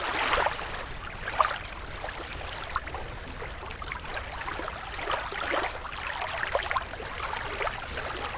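Water lapping and splashing in small irregular splashes, with no engine running.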